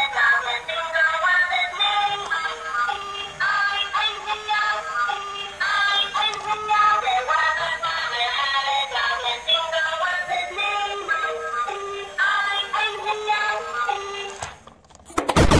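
Battery-operated light-up toy steam train playing its built-in electronic tune, a quick stepping melody of short notes. The tune stops shortly before the end, followed by a brief loud thump.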